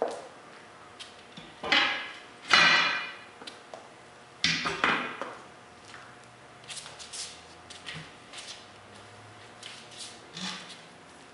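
A steel tyre-changing bar clanking against the steel wheel rim of a truck tyre, with several loud ringing metallic knocks in the first five seconds. Lighter clicks and taps follow as the tool is levered around the rim to work the tyre bead off.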